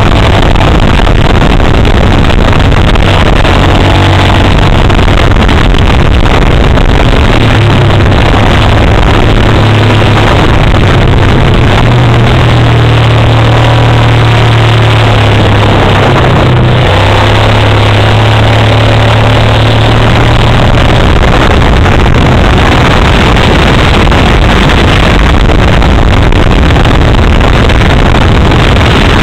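Steady low engine drone with heavy road and wind noise, heard from inside a moving vehicle; loud and overloaded, the drone's pitch shifting slightly midway.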